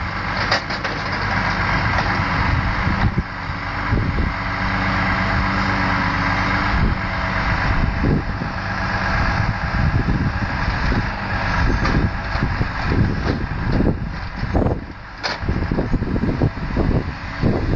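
Volvo timber truck's engine running steadily to power its Loglift 96S crane, with the hiss and whine of the crane's hydraulics as the grapple lifts pulp logs onto the load. Repeated knocks and thuds come in the second half as logs are gripped and set down.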